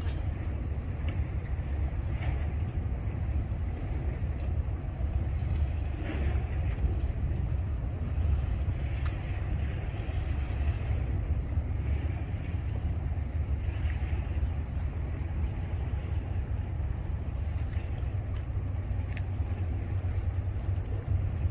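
Steady low rumble of wind buffeting the microphone, with a few faint ticks.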